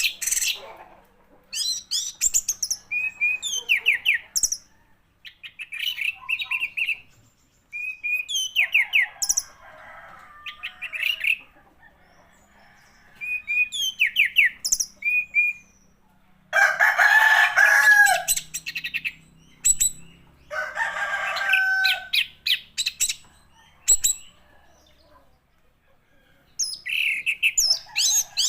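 Orange-headed thrush (anis merah) singing in bursts of varied whistles and chirps separated by short pauses, with two longer, rougher phrases about two-thirds of the way through.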